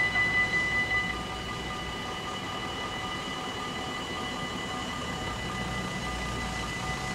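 Dutch AHOB level-crossing warning bells ringing with a fast pulse. They drop to a softer, steady ring about a second in, once the barriers are down.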